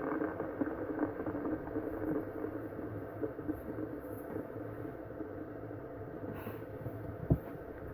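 Fidget spinners whirring on a table, a steady whir that slowly gets quieter as they lose speed. A single click near the end.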